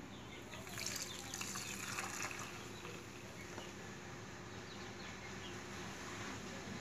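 Egg-and-milk pudding batter being poured from a bowl into a metal cake tin over set caramel: a faint liquid pouring sound that swells about a second in, then runs on more evenly.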